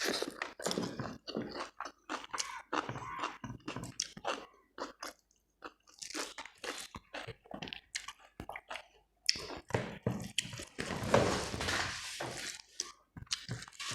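A person chewing and crunching a meal of rice, dal, fried potatoes and cabbage salad. The sounds come in short, irregular bites, growing denser and louder about eleven seconds in.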